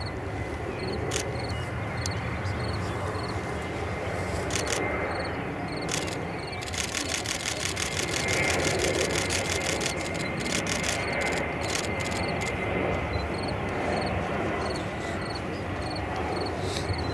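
Distant jet engine rumble of an Airbus A320 landing and rolling out on the runway, swelling for a couple of seconds about eight seconds in. Regular high insect chirps sound over it, with a fast run of high clicks in the middle.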